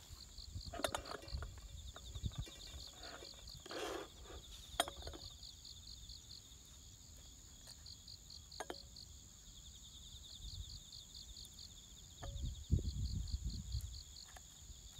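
Insects chirping steadily in a fast, even pulsing rhythm. A few light clicks and clinks come from a paper coffee filter and glass server being handled, and there is a brief low rumble near the end.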